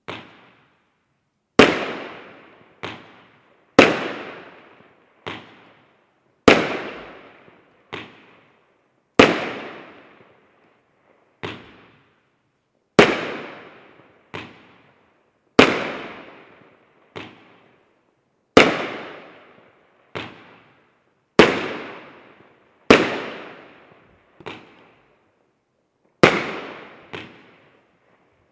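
A 20-shot consumer fireworks battery firing its shots one by one: sharp bangs about every second and a half, alternating louder and softer, each trailing off in an echo.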